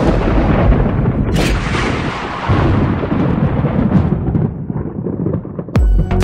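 Thunder-like rumbling sound effect that swells at once, with a hissing whoosh about a second and a half in, then slowly dies away. Electronic music with a heavy, regular beat cuts in near the end.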